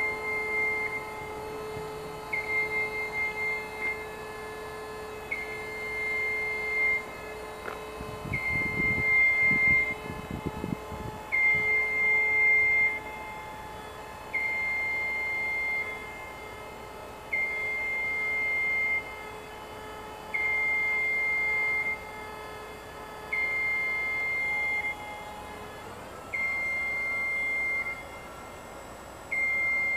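Genie Z-40/23N RJ battery-electric boom lift working its boom: a warning alarm beeps about once every three seconds, each beep about a second and a half long, over a steady machine hum. A burst of low rough noise comes about a third of the way in.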